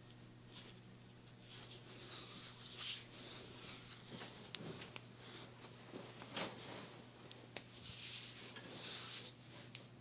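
Hands rubbing and pressing over bare feet during a reflexology massage: soft swishing of skin on skin in uneven strokes that rise and fall, with a few small clicks near the end and a faint steady hum underneath.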